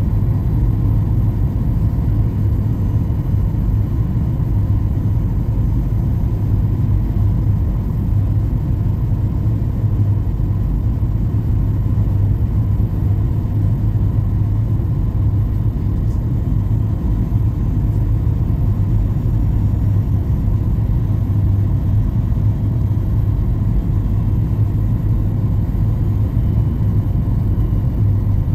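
Steady low rumble of an airliner cabin in flight: engine and airflow noise heard from inside the plane, with a steady low hum running under it.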